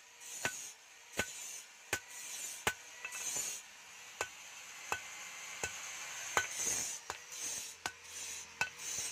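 Hammer blows on steel at a steady pace, about one every 0.7 seconds, each with a short metallic ring. A scraping hiss fills the gaps between the blows.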